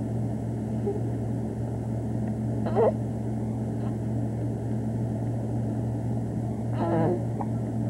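A steady low hum under a haze of hiss, as on an old camcorder tape. Two short voice sounds break through it, one about three seconds in and one near the end.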